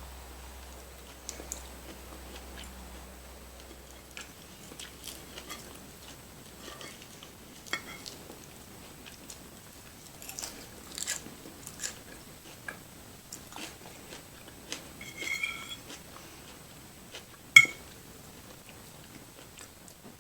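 Close-miked eating sounds: a person chewing and biting food, with many soft wet clicks and smacks. A sharp ringing clink sounds near the end.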